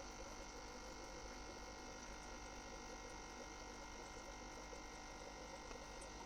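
Faint steady hum and hiss with no distinct events: room tone.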